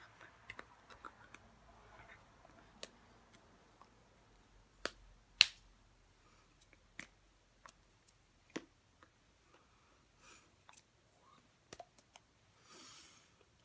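Scattered sharp clicks and taps of hands striking and brushing each other while signing, the loudest about five and a half seconds in, with a breathy exhale near the end.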